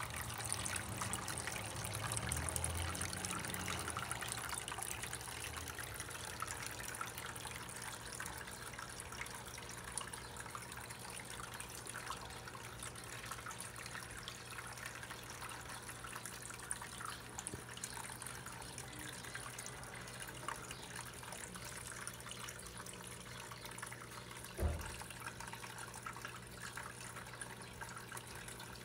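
Small terrarium waterfall trickling steadily over rocks, with a steady low hum underneath. A single soft thump about 25 seconds in.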